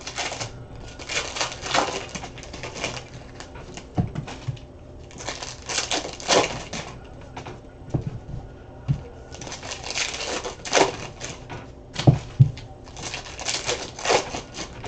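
Panini Contenders basketball card packs being opened and the cards handled: repeated bouts of wrapper crinkling and card rustling, with a few knocks on the table.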